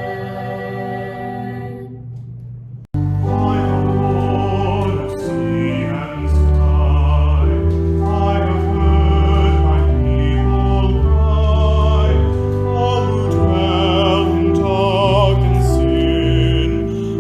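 Hymn music: a held chord breaks off abruptly about three seconds in, and a sung piece with a wavering, vibrato voice over instrumental accompaniment with sustained bass notes begins.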